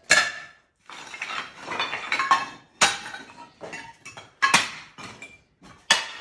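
A pick striking stones and broken tile rubble: several sharp strikes at irregular intervals, with clinking and clattering of loose rubble between them.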